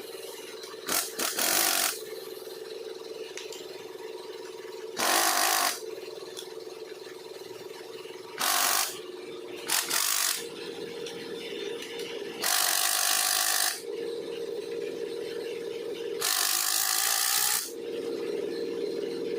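A power tool run in repeated short bursts, about six or seven in all, each lasting up to about a second and a half, over a steady background hum.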